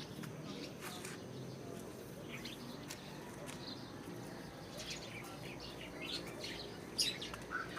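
Birds chirping in short, scattered calls over a steady low background noise, with the chirps coming more often near the end.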